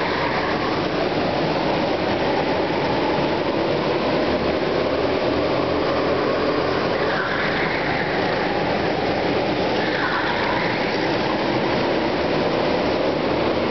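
Several go-kart engines running as karts race around an indoor track, a steady din echoing in the hall, with engine pitch rising and falling as karts pass about halfway through and again a few seconds later.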